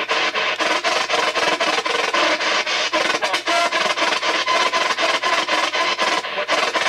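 P-SB7 spirit box sweeping the AM radio band: a loud, continuous chopping stream of static and clipped snatches of radio stations, cut into several short bursts a second.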